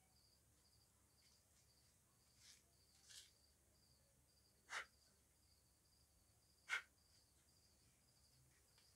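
Faint crickets chirping steadily, about two chirps a second. A few short sharp clicks or taps cut in, the loudest two about halfway and two-thirds of the way through.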